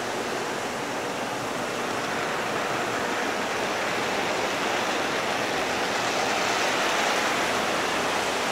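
Lionel O-gauge model trains running: a steady whirring rumble of the locomotives' motors and steel wheels on the track, growing a little louder as the train passes close.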